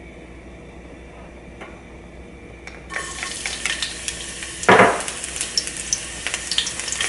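Chopped garlic and Thai red chilies start sizzling in hot oil in a pan over medium heat, beginning suddenly about three seconds in after a quiet stretch. The sizzle is joined by stirring, with a loud scrape against the pan about five seconds in.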